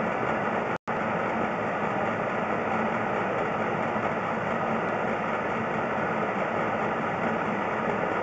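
Steady mechanical running noise, like an engine idling, with a brief total cut-out about a second in.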